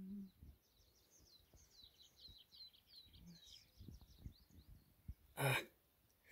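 A small bird singing faintly: a quick series of short, falling, high-pitched chirps lasting about two and a half seconds, with a few soft low taps after it.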